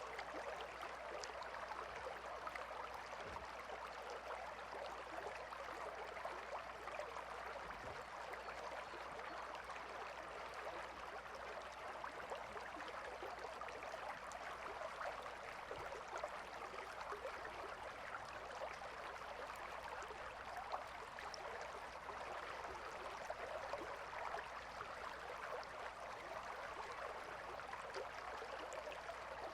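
A river or stream flowing steadily, a constant even rush of water with fine trickling detail.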